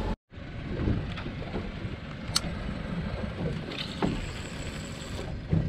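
Steady wind and water noise around a small boat on open sea, with one sharp click about two and a half seconds in.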